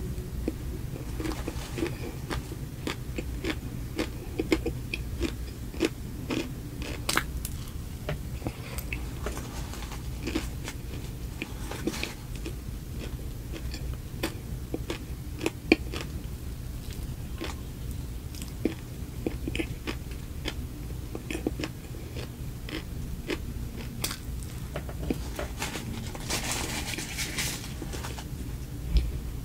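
Close-miked biting and chewing of a soft homemade mini cupcake, with many small sharp mouth clicks and some crunch.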